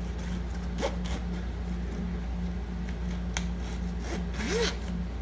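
Metal kitchen tools being handled and slid into the nylon slots of a knife roll bag: a few sharp clicks and a short rubbing scrape, over a steady low hum.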